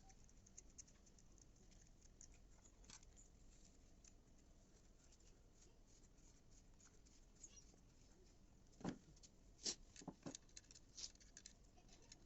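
Mostly near silence with faint scattered light clicks, then a short run of sharper clicks and taps about nine to eleven seconds in, like small parts being handled.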